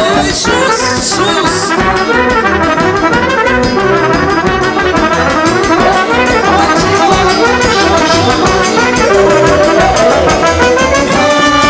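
Live folk dance music from a wedding brass band: trumpets and other brass play the melody over a regular beat from a bass drum with a cymbal mounted on top.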